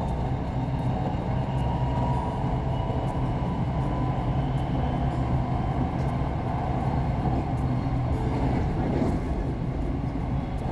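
An SRT Red Line electric commuter train running between stations, heard from inside the carriage: a steady low rumble and hum, with faint higher tones over it.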